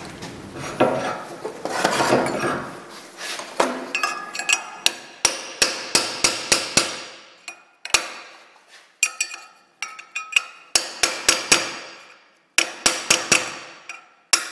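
Hammer blows on a copper punch, driving the twisted steel saddlebag mount of a BMW R1100S back into shape in a bench vise. After a few seconds of scuffing handling noise come quick runs of sharp metallic taps, about three a second, with short pauses between the runs.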